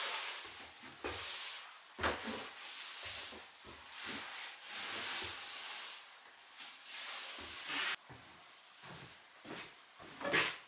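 A broom sweeping bare wooden floorboards: a string of brushing strokes, about one a second. A couple of short knocks near the end.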